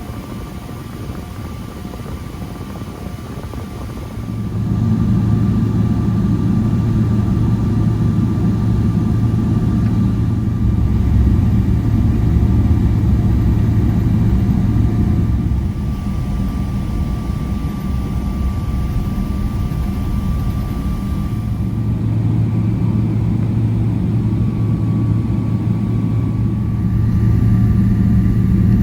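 Airliner cabin noise inside a Boeing 777-300ER: a steady low rumble with faint steady whining tones. It grows clearly louder about four seconds in, eases a little around halfway, and rises again near the end.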